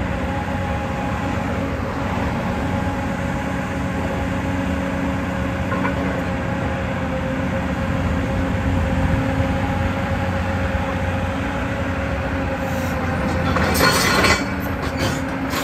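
Hyundai R360LC-7A excavator's diesel engine running steadily under working load as the machine tracks and lifts its boom. About thirteen seconds in there is a short, louder burst of harsh metallic clatter.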